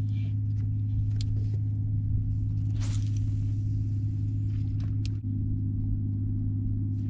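A steady low motor hum, with the swish of a spinning rod casting a popping-cork rig about three seconds in.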